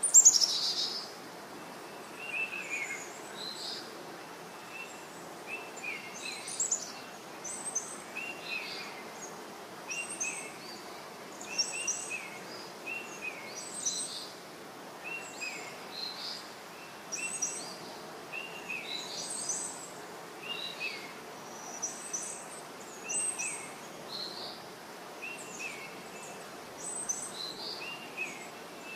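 Birds chirping, with short calls repeating every second or two over a steady background hiss, and one sharper, louder sound right at the start.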